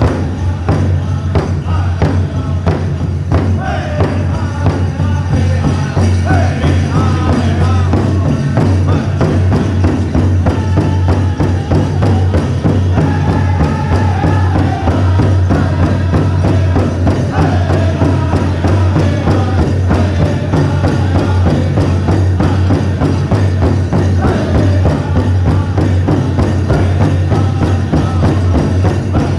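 Powwow drum group singing a chicken dance song over a steady drumbeat on the big drum, with the dancers' bells jingling.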